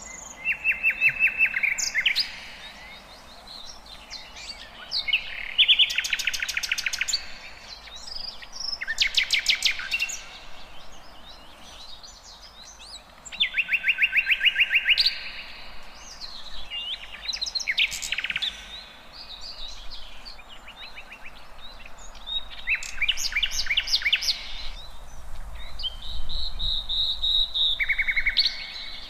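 Songbirds singing in the open: loud, rapid trilled phrases, each a second or two long, repeating every few seconds, with shorter chirps and whistles from other birds in between.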